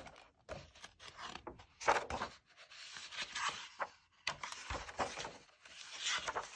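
Paper pages of a picture book being handled and turned: irregular rustling and swishing strokes, with a soft low bump about two-thirds of the way through.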